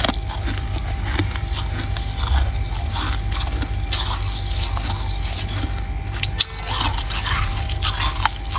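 Freezer frost being bitten and crunched: a steady run of irregular crunches with one sharp crack about six and a half seconds in, over a steady low hum.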